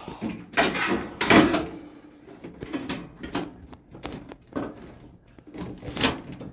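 Knocks and scrapes of a clothes dryer's cabinet panels being handled and fitted during reassembly, a series of separate clunks with the loudest about a second in.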